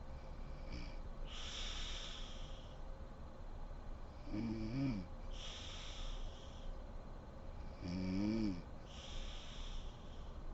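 A sleeping woman snoring in a slow, regular breath cycle: pitched, rattling snores on the in-breath, two of them clearly about three and a half seconds apart, each followed by a long hissing out-breath.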